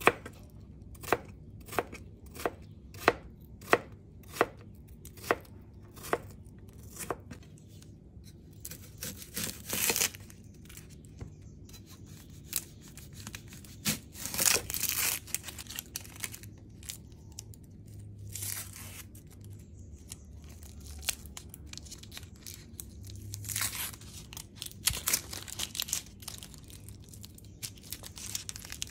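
Kitchen knife chopping cucumber on a cutting board: a steady run of sharp knocks, a little more than one a second, for the first several seconds. About halfway through, the knife crunches through a whole onion. Near the end, dry onion skin crackles and tears as it is peeled off.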